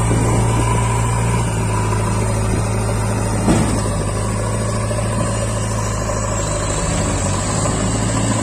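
JCB 3DX backhoe loader's diesel engine running at steady revs as its front bucket pushes against a stuck tractor trolley, with one short knock about three and a half seconds in.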